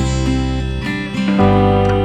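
Background music: guitar chords held and changing, over a steady bass.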